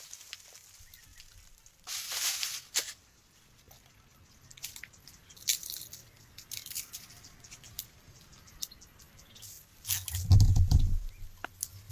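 Crunching and rustling of dry forest litter (leaves and twigs) in scattered bursts, with a low thump about ten seconds in.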